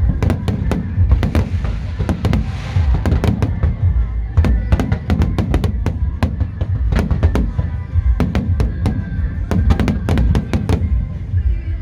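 Aerial fireworks bursting in rapid succession: many sharp bangs over a continuous deep rumble, with a short crackling hiss about two and a half seconds in.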